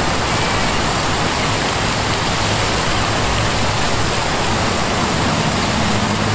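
Two-tiered fountain with dog-sculpture water jets, its many arcing streams splashing into the basin in a steady, dense rush of falling water.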